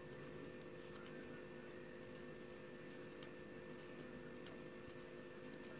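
Faint room tone: a steady electrical hum with a few soft, scattered ticks.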